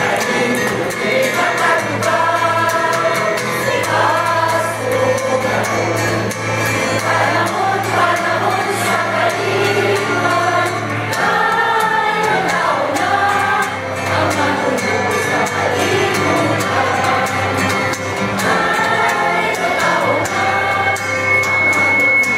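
A mixed group of men and women singing together in chorus over amplified accompaniment, with an acoustic guitar among the instruments and steady low held notes underneath.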